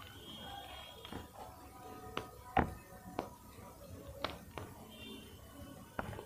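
A block of gym chalk being squeezed and crumbled in the hand, giving irregular sharp cracks and crunches. The loudest crack comes about two and a half seconds in.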